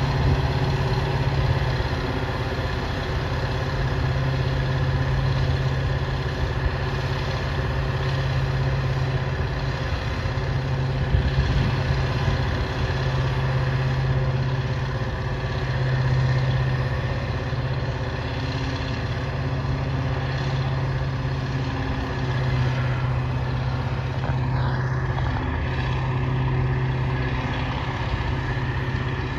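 Heavy diesel engine running steadily at an even pitch, with a low drone.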